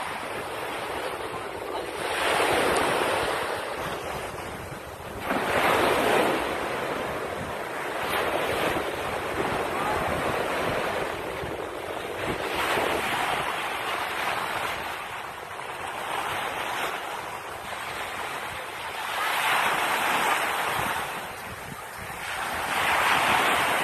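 Surf washing up on a beach, the rush of water swelling and fading every three to four seconds, with wind buffeting the microphone.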